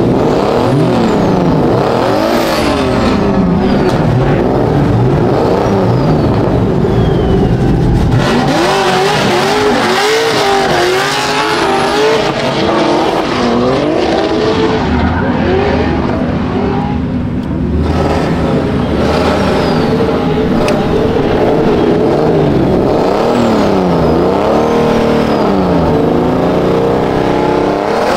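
Drift car engines revving hard up and down, over and over, with tyres screeching.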